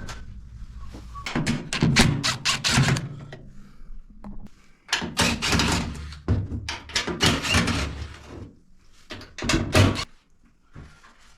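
Bursts of clunks, knocks and rattles, several in quick succession, as a washing machine's cabinet is taken apart during a repair.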